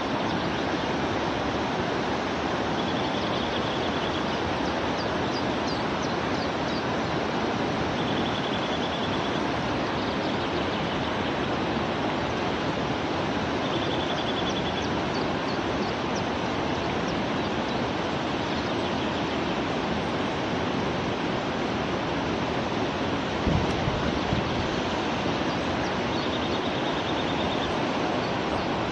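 A steady rushing noise, such as running water or wind, at an even level throughout. Over it come faint high bird calls: a short trill four times and scattered thin chirps. There is a low thump about two-thirds of the way through.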